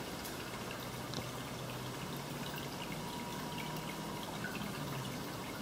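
Aquarium water trickling and splashing steadily, with small scattered drips and ticks. A faint low hum comes in about a second and a half in.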